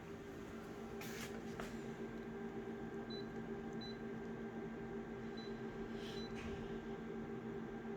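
Steady low electrical or fan-like hum, with a few faint short high-pitched blips at irregular intervals and a couple of soft rustles.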